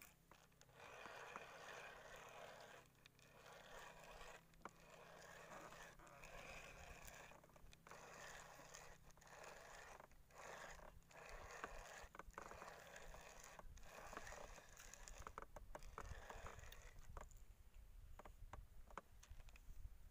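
Faint scratchy whirring of a fishing reel being cranked to retrieve a lure, in stretches of a second or two with short pauses between them.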